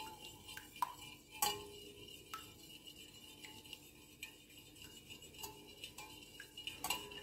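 Stainless steel wire whisk beating a raw egg in a bowl: faint, irregular ticks of the wires against the bowl, with a few sharper clicks now and then.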